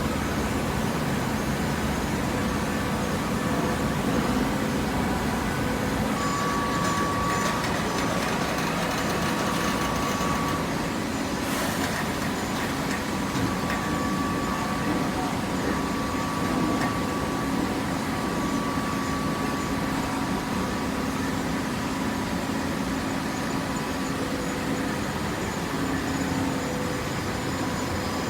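Hydraulic waste paper baler running: a steady machine hum with a faint whine that comes and goes.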